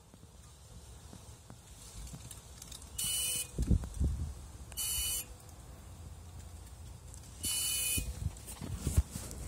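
Short buzzing bursts, each about half a second long, come three times at uneven intervals from a 2013 BMW 320d whose N47 four-cylinder diesel is switched off. A few dull low thumps fall between and after the bursts.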